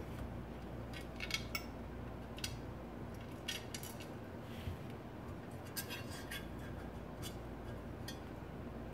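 Small metal Stirling engine kit parts clicking and clinking against a black metal base as they are handled and fitted by hand, in scattered sharp taps, some in quick clusters, over a low steady hum.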